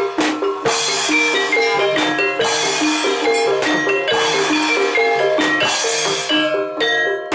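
Gamelan accompaniment for a jaranan dance: saron-type metallophones struck with mallets play a fast repeating melody over drumming.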